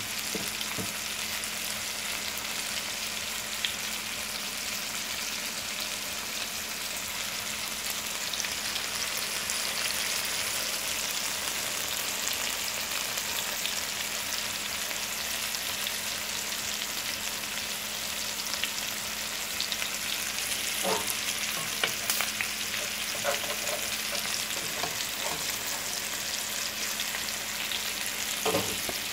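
Chicken breasts frying in olive oil and butter in a skillet: a steady sizzle with scattered small pops.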